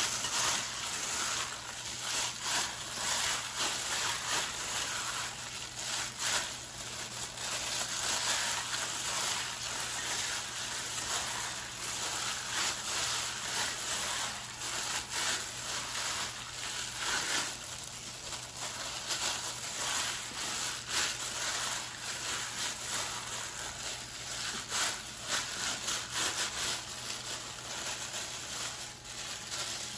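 Raw ground turkey being kneaded by hand with thin plastic disposable gloves: irregular wet squishing of the meat mixture mixed with the crinkle of the gloves.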